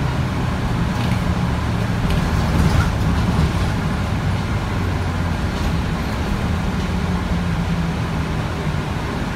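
A Mercedes-Benz O405G articulated bus's diesel engine running steadily, a low humming drone heard from inside the bus cabin.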